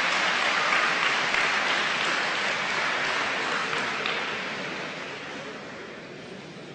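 Audience applauding, loudest at first and then slowly dying away.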